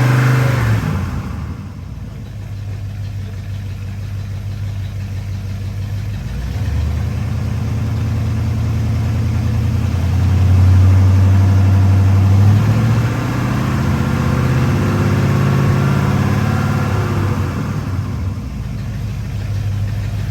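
1966 Ford F100 engine idling while its ignition timing is set with a timing gun. The engine speed and loudness rise and fall a few times, rising most around the middle.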